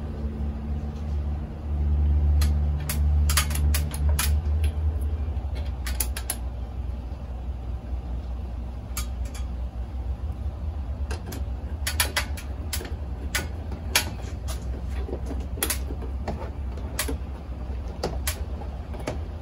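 Scattered clicks, taps and scrapes of a hand screwdriver and small screws against a metal ceiling fan canopy as the screws are driven in by hand. Under them runs a low rumble that swells for a few seconds near the start.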